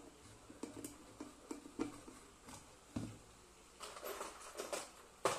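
Clicks and knocks of a stainless-steel electric kettle being worked on with a screwdriver and handled on a workbench, with a dull thump about three seconds in and a sharp knock near the end.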